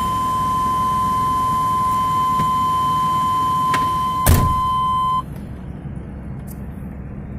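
Van engine idling in park with a steady high warning beep from the dashboard, which cuts off suddenly about five seconds in, shortly after a single loud thunk.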